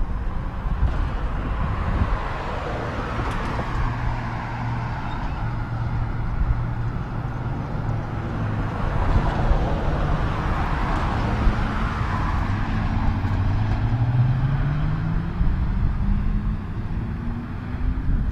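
Road traffic: cars passing on the street, their tyre noise swelling and fading, with wind buffeting the microphone. Near the end a hum rises steadily in pitch.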